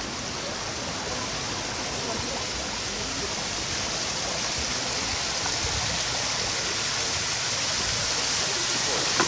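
Water cascading from an umbrella-shaped fountain and splashing into a pool: a steady rush of falling water that grows louder towards the end.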